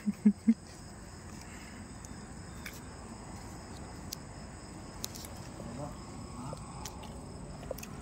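Crickets chirping steadily, with a few short voice sounds right at the start.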